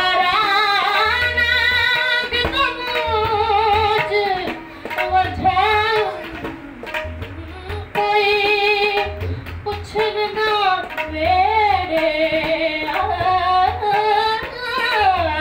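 A woman singing a Punjabi folk song solo, with long held notes that waver and glide in ornamented runs, over a low drum beat.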